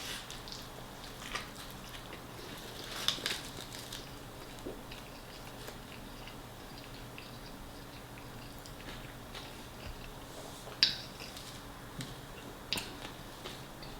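Close-up eating sounds: a person biting and chewing food, with scattered soft mouth noises and a few sharp clicks, the loudest about eleven seconds in.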